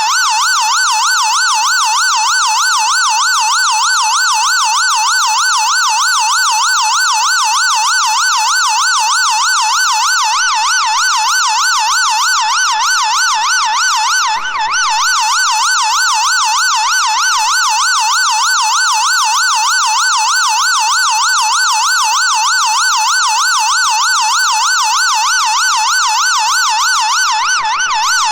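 Electronic emergency-vehicle siren on a fast yelp, its pitch sweeping rapidly up and down several times a second, with a brief break about halfway through.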